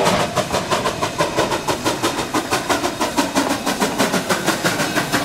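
Durango & Silverton narrow-gauge steam locomotive No. 481 working, its exhaust chuffing in a fast, even beat of about six chuffs a second.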